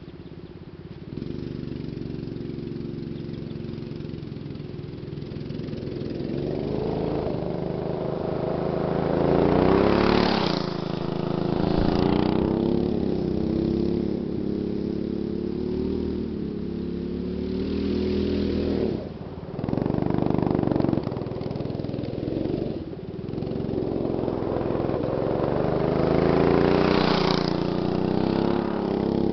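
Go-kart engine revving up and easing off again and again as the kart laps a dirt track, swelling loudest as it passes close, about ten seconds in and again near the end, with brief drops where the throttle is let off.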